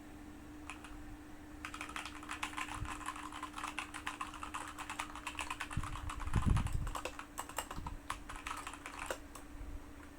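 Typing on a Keychron K2 mechanical keyboard with tactile Gateron Brown switches and ABS keycaps: a fast, dense run of key clicks starting about two seconds in and stopping shortly before the end, with a low thump about two-thirds of the way through.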